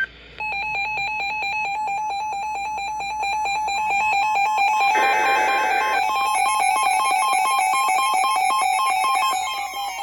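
Emergency Alert System two-tone attention signal: a loud, steady, pulsing alarm tone. A short hissy burst cuts in about five seconds in, and falling whistle-like tones begin near the end.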